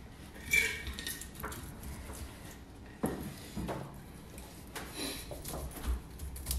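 Kitchen knife cutting the rind off a whole pineapple on a cutting board: irregular separate slicing strokes and scrapes, with a sharper knock about half a second in and another about three seconds in.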